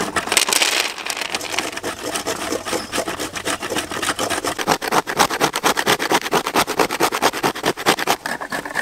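Dry coconut being grated by hand on a metal grater: a steady run of rasping scrapes, several strokes a second.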